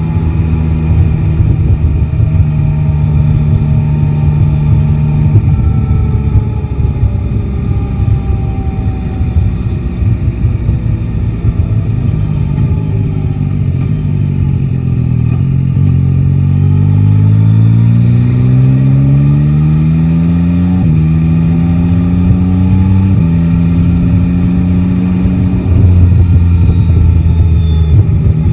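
Yamaha Tracer 9 GT's inline-three engine riding in traffic: it holds a steady note, drops back about halfway, then revs climb as the bike accelerates, with two upshifts late on before it settles to a steady lower note.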